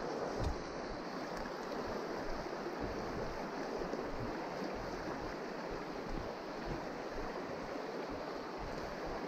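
Steady rush of a shallow river's current running over stones.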